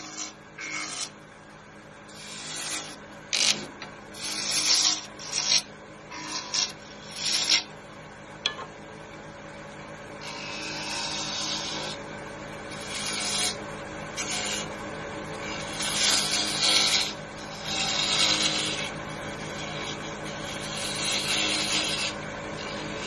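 Turning tool cutting a spinning wooden blank on a wood lathe, over the lathe's steady hum. First comes a quick series of short cuts, then, about halfway through, longer shearing passes.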